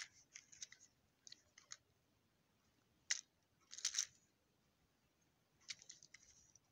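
Scattered light clicks and rustles of a small plastic toy engine being handled and turned over in the hands, with a sharp click about three seconds in and small clusters around four and six seconds.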